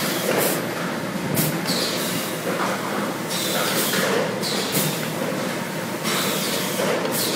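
Cookie depositor with rotary nozzles running: a steady mechanical hum with short hisses every second or two as it pipes rows of rosette cookies.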